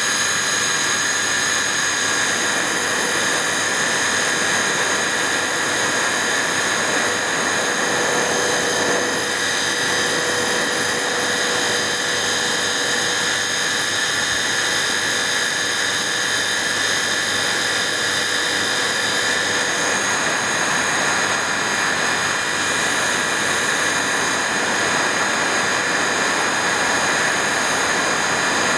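A steady engine-like roar with several high whining tones held at an unchanging pitch and level throughout.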